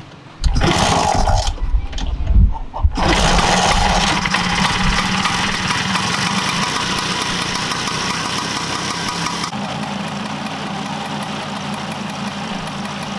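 Restored 1962 Vespa's single-cylinder two-stroke engine being kick-started, catching after about three seconds of kicking and uneven firing. It then runs steadily, easing slightly toward the end.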